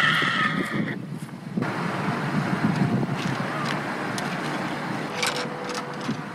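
A hooked gull gives one call, about a second long, at the start. It is followed by a steady rushing noise.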